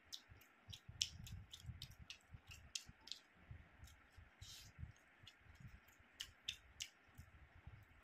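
Close-up chewing with wet mouth clicks and lip smacks, several irregular clicks a second over soft dull thuds.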